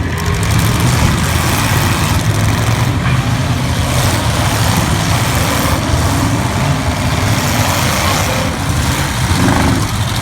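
Several V8 demolition-derby car engines running together, a loud, continuous low engine drone with a haze of mechanical noise over it.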